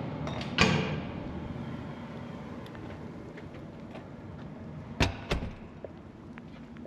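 A door banging shut about half a second in, then a double clack about five seconds in, over steady low background noise.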